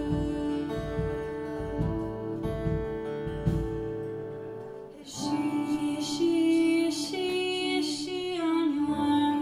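Live performance of a slow song: a woman singing with her own acoustic guitar and a backing band. The music thins almost away about four seconds in, and the voice comes back in about a second later.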